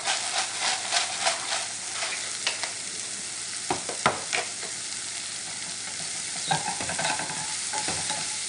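Sliced mushrooms sizzling steadily in butter and olive oil in a skillet, with scattered clicks and knocks of a utensil against the pan as they are stirred.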